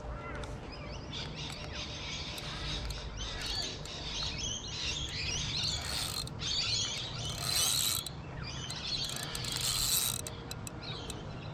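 Birds chirping and twittering in a dense, busy chorus that builds through the middle and peaks near the end, over the mechanical ratcheting of a fishing reel as a fish is fought and wound in.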